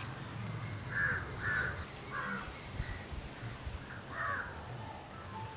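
A crow cawing four times in short calls: three close together in the first half, and one more a little past the middle.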